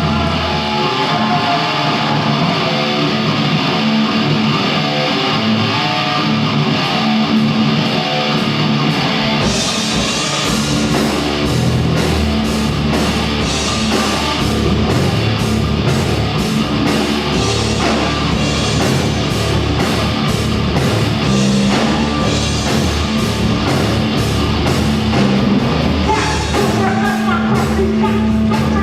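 Rock band playing live, led by electric guitar over bass, with the drum kit coming in about ten seconds in and driving a steady beat from there.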